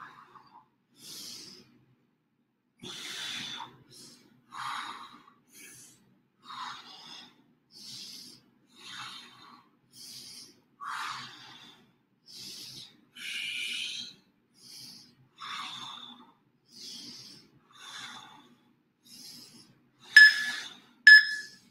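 A person breathing hard and rhythmically from the exertion of bodyweight squats, about one breath a second. Near the end come three louder short sounds about a second apart, each with a steady tone.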